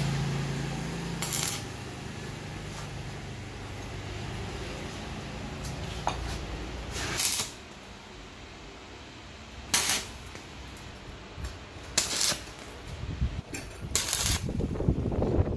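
Workshop metalwork on steel motorcycle sprockets: metallic clinks as the sprockets are handled and set in place, with several short sharp bursts a few seconds apart.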